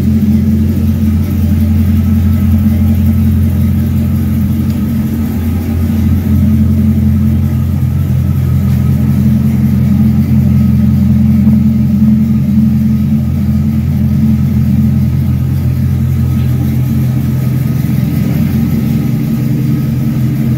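Engine of a square-body Chevrolet Silverado dually pickup idling steadily, with no revving.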